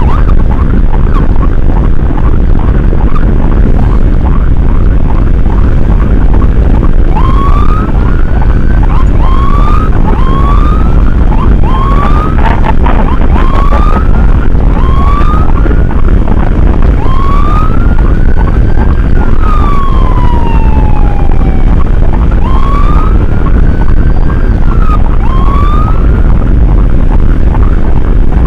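Emergency vehicle siren sounding in short rising whoops about every second and a half, with one long rising-then-falling wail partway through. Under it runs the steady low rumble of the moving vehicle.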